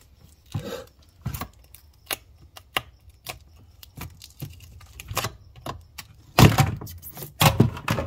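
A screwdriver prying a corroded e-bike battery pack off its taped plastic backing plate: irregular clicks, creaks and scrapes, with two longer, louder scrapes about a second apart near the end as the pack is levered away.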